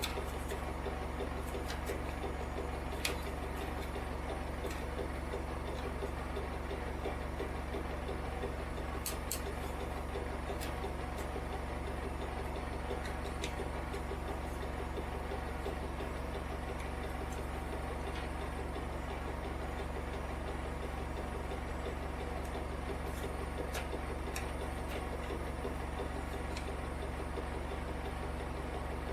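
Zanussi IZ 16 S washing machine running with a steady low motor hum, and a few scattered light clicks.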